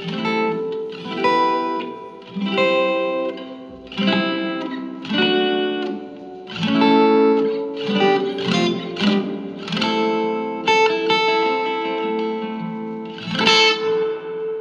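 Tanglewood DBT SFCE electro-acoustic guitar being played: chords struck about once every second or so and left to ring, with a loud strum near the end.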